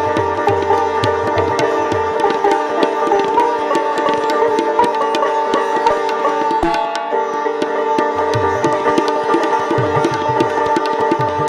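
Sitar and tabla playing together in Hindustani classical style: quick, evenly spaced sitar strokes over ringing drone strings, with tabla beats throughout. The tabla's deep bass drops out for several seconds midway and then comes back.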